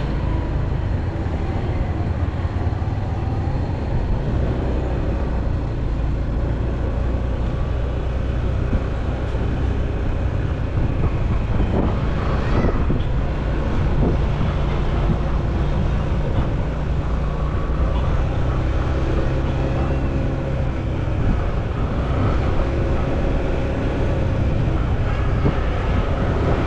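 Motorcycle engine running steadily on the move, with road noise and surrounding street traffic, and a brief rise and fall in pitch about twelve seconds in.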